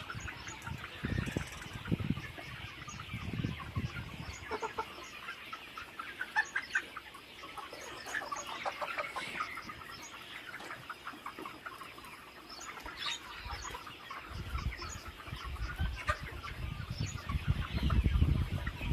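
A large flock of desi chickens in a poultry shed, clucking and calling, with many short overlapping calls. Low rumbling thumps come in at the start and again for the last few seconds.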